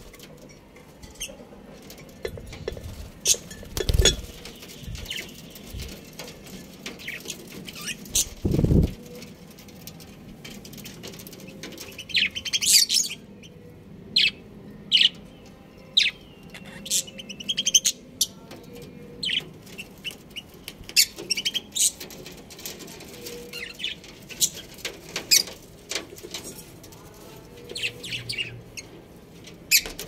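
Budgerigars and lovebirds chirping: many short, high chirps scattered throughout, with a couple of low thumps about four and nine seconds in.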